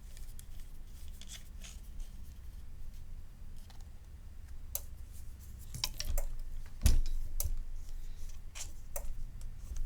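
Scattered clicks and taps of plastic and metal parts of a suction-cup phone-opening jig being handled and fitted on a workbench, with one louder knock about seven seconds in, over a low steady hum.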